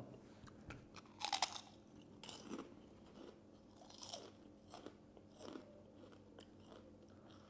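A crisp homemade rice papad being bitten and chewed, with a loud crunch about a second in followed by quieter, scattered crunches as it is chewed.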